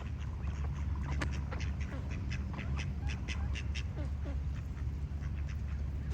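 Duck quacking in a quick run of short calls, about three a second, from about a second in until about four seconds, over a steady low rumble.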